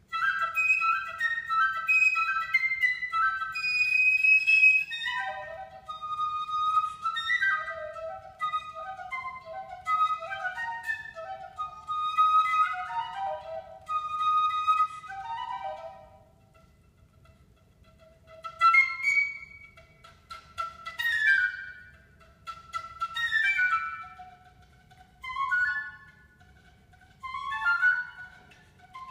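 Solo piccolo playing a fast passage. For about sixteen seconds it plays quick, unbroken runs and repeated notes, then short rapid flourishes, mostly falling in pitch, with quiet pauses and a few held notes between them.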